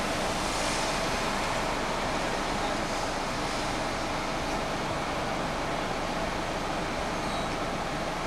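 Steady street traffic noise from cars passing on the road.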